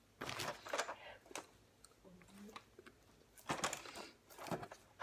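Packaging being handled: crinkly rustling and rubbing in short bursts, one near the start, one about three and a half seconds in, and another at the end.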